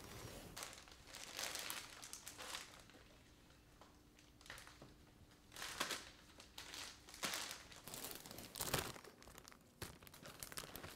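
Plastic zip-top bags crinkling and rustling in faint, scattered bursts as scallions are dropped into them.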